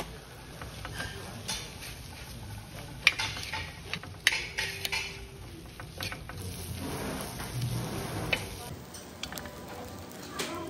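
Metal spatulas scraping, tapping and clanking on a cast-iron griddle as fried rice is chopped and stirred, with two sharper clanks about three and four seconds in.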